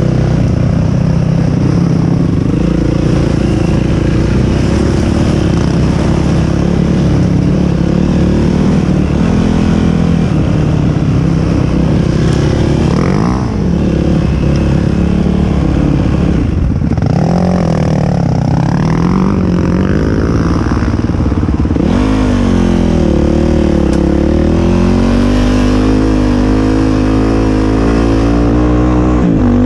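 ATV engine running under way, its note rising and falling with the throttle; around the middle it drops and climbs several times in quick succession.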